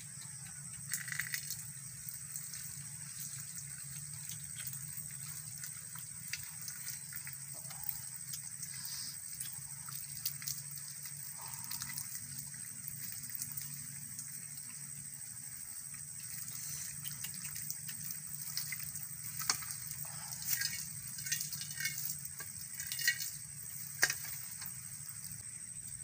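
Live eel slapping and rattling against a metal pan as it is handled, in scattered sharp knocks that come thickest in the last third, over a steady low hum and a thin high steady tone.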